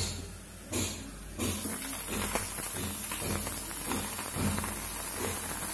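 Brinjal (eggplant) pieces frying in hot oil in a pan, a steady sizzle with fine crackles that starts suddenly about a second and a half in as they go into the oil.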